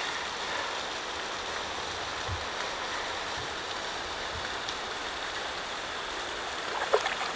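Steady rushing of a shallow creek flowing.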